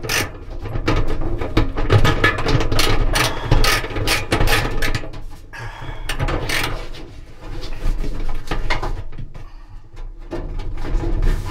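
Socket ratchet wrench clicking as it turns the nut at the centre of a dryer drum, in runs of rapid clicks with short pauses between strokes.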